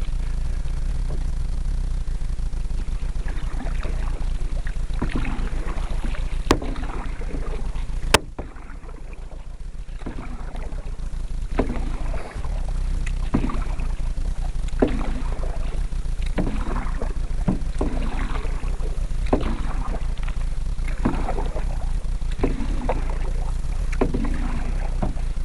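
Canoe paddle strokes in water, a splash and swirl about every one and a half to two seconds, over a steady low rumble. Two sharp knocks come about six and eight seconds in.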